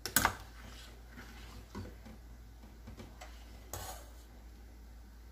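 Metal spoon stirring a thick, creamy soup in a stainless steel pot, knocking and scraping against the pot: one sharp clink just after the start, then a few lighter knocks.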